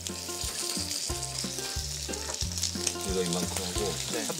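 Hanwoo beef sirloin steak sizzling in melted margarine on a grill pan over a tabletop gas burner: a steady frying hiss. A light background tune plays under it, with a wavering pitched figure near the end.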